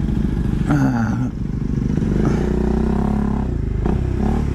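Motorcycle engine running steadily at low revs, with a low, even pulsing. A short clatter about a second in.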